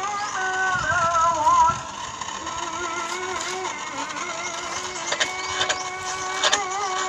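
Background music with a wavering melody line, and a few sharp clicks or knocks in the second half.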